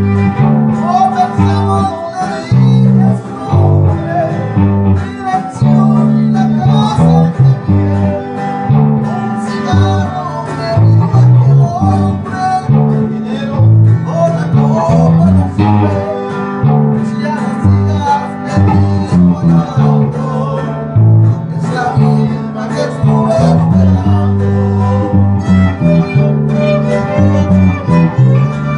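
Live fiddle and guitar playing a tune together: the bowed fiddle carries the melody over strummed guitar, with a steady line of low bass notes changing about twice a second.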